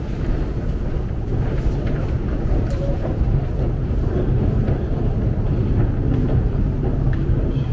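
Steady low rumble of a long metro escalator running, heard from on board, with a few faint clicks.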